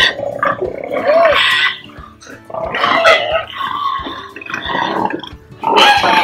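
Pigs squealing in a run of irregular high calls, with brief lulls about two seconds in and again shortly before the end.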